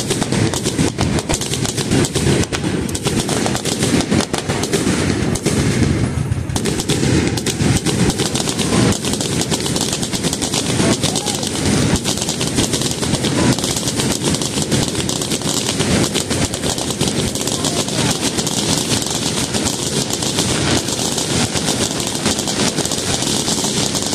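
Fireworks going off in a dense, unbroken run of rapid bangs and crackles.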